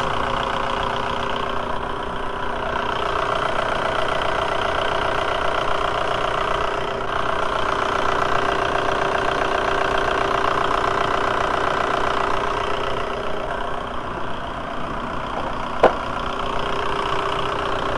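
VW 1.9-litre ALH TDI four-cylinder turbodiesel idling steadily while it warms up after a thermostat replacement. There is a single sharp click about two seconds before the end.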